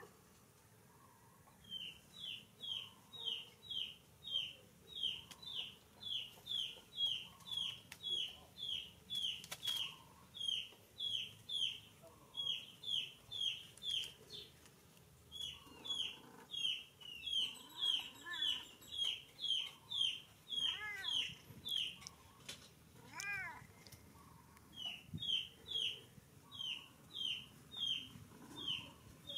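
A steady run of short, high squeaks, each falling in pitch, about two to three a second, with two brief pauses. A cat meows twice near the end.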